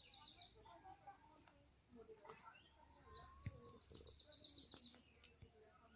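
A small bird singing a rapid, high-pitched trill. It is heard twice: briefly at the start, then a longer trill of about two seconds in the middle, with a single sharp click partway through it.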